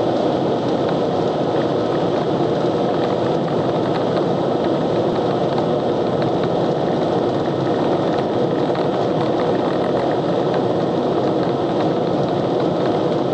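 Steady road and wind noise inside a car's cabin cruising at highway speed.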